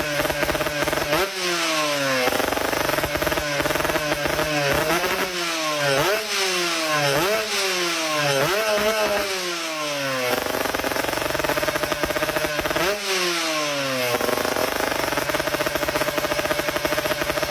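A small engine running at a steady idle and revved in quick throttle blips, about one a second: a run of blips from about 1 to 10 seconds in, and two more around 13 seconds in, each rising sharply and winding back down.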